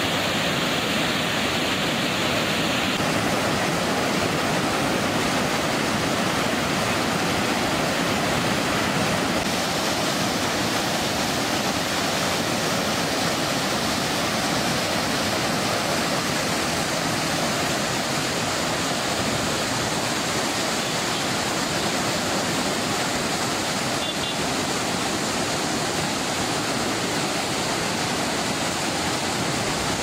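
Turbulent water surging out of a dam outlet into a canal, a steady loud rushing and churning of white water.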